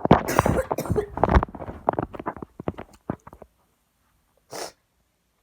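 Rustling and clattering of things being handled and moved, with many small knocks, for about three and a half seconds, then a single short sniff near the end.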